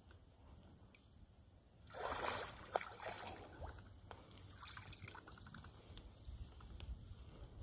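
Water splashing as a hooked striped bass thrashes at the surface beside a landing net: a burst of splashing about two seconds in, then smaller splashes and trickling.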